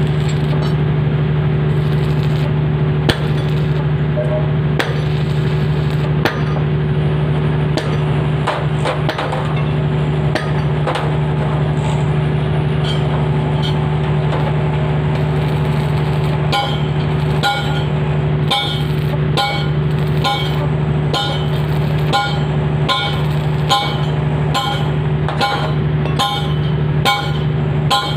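Steady engine drone, with ringing metal-on-metal clanks: scattered at first, then from about halfway a regular beat of a little over one strike a second.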